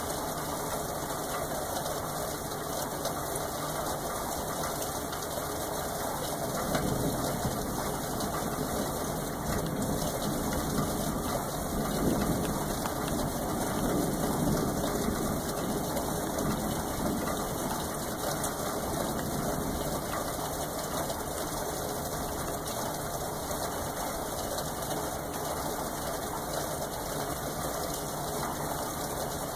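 Steady rain, with a low roll of thunder that swells about seven seconds in and dies away about ten seconds later.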